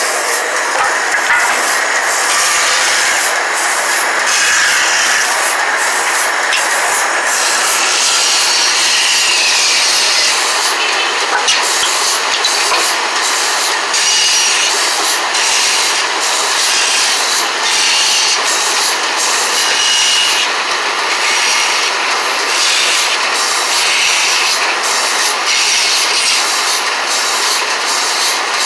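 Band saw running and cutting through a thick wooden block, a steady loud whir that dips briefly in the high end now and then.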